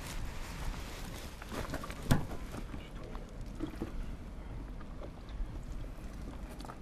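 Rustling and handling noise from a handheld camera moving in the dark, with scattered small clicks and one sharp knock about two seconds in.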